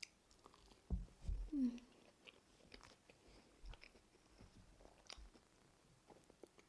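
A person quietly chewing a mouthful of ugali with sukuma wiki and beef, with soft mouth clicks and smacks and a short hum about one and a half seconds in.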